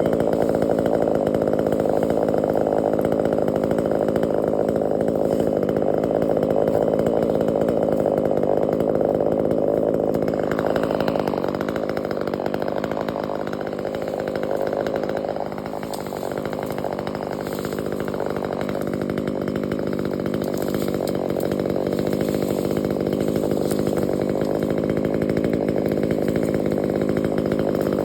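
Chainsaw engine running steadily at high revs. It eases off and changes tone for a few seconds in the middle, then picks back up.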